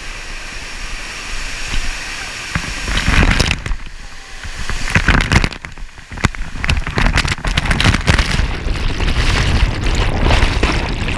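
Waterfall water pounding on a helmet-mounted GoPro and its microphone: a loud, crackling rush that surges and drops away several times.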